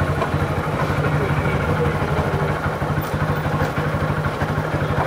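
Hero Glamour's single-cylinder four-stroke engine running steadily in third gear at about 20 km/h, the bike on its stand with the rear wheel turning free.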